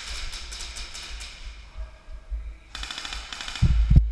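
Airsoft electric guns firing two full-auto bursts, a fast rattle of sharp snaps, the first lasting about a second and a half and the second starting just under three seconds in. The snapping is BBs striking the wooden barrier just in front, the barrel sitting lower than the sights. A few heavy knocks come near the end.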